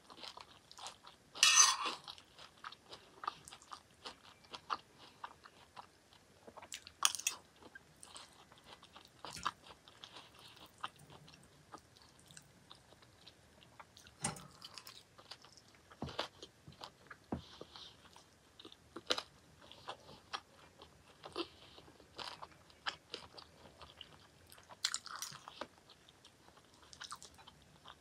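Close-miked chewing and crunching of a mouthful of peas, greens and grilled chicken, with irregular sharp clicks of a fork on the plate. The loudest is a brief, sharper noise about two seconds in.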